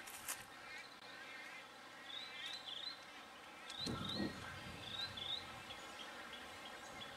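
Birds calling in a wading-bird rookery: short, high, rising chirps repeated many times, with a brief low rumble about four seconds in.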